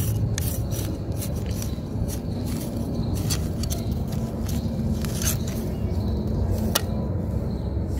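Metal khurpi scraping and cutting into a potted hibiscus's root ball, soil and fibrous roots breaking away in irregular short scrapes, over a steady low rumble.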